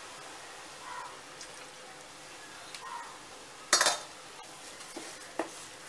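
A single sharp clatter of kitchenware, a utensil knocking against a cooking pan, about four seconds in, over a faint steady hiss.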